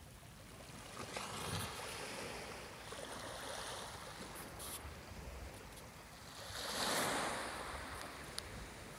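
Small waves lapping on a pebble beach, with one larger wash swelling up and falling away about seven seconds in.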